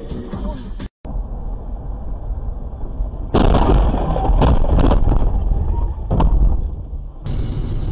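Dashcam recording from a moving car: engine and road noise, then, about three seconds in, a sudden loud crash of a road collision with several sharp knocks, lasting about four seconds.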